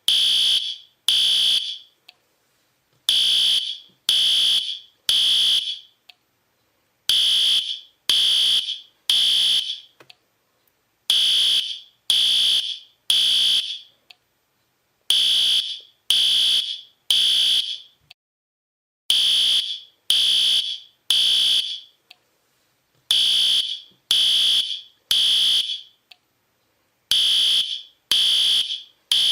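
Fire alarm sounding high-pitched beeps in groups of three, each group followed by a short pause and repeating about every four seconds: the temporal-three evacuation signal.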